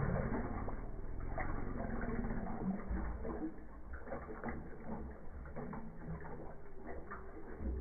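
Machete blade chopping into a coconut's husk and shell, in irregular knocks about one or two a second.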